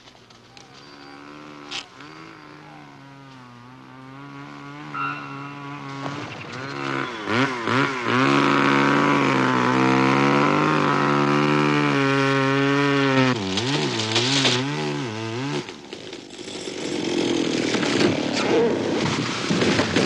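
Two-stroke chainsaw cutting into a tree trunk. The engine fades in, runs hard, and dips in pitch under load a few times. About four-fifths of the way through the motor sound gives way to irregular cracking and crashing as the felled tree comes down through branches.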